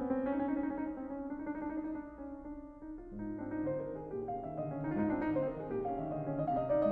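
Background piano music; it grows quieter about two seconds in, then picks up again with lower notes.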